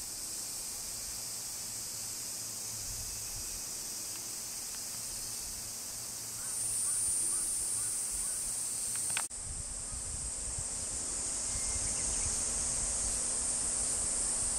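A steady high-pitched chorus of cicadas droning, swelling louder for a moment a little before halfway. About two-thirds of the way through, a sharp click breaks it, after which the chorus goes on over a low rumble of wind on the microphone.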